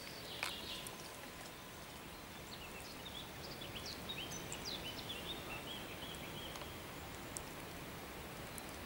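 A small bird chirps in quick, high, short notes for a few seconds mid-way, over a steady outdoor hiss. A sharp click sounds right at the start.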